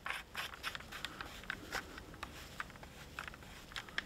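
Knurled end cap being screwed by hand onto the CO2 capsule tube under the barrel of an Umarex HDX.68 pump-action air shotgun: faint, scattered small clicks and scrapes of the threads and fingers turning the cap.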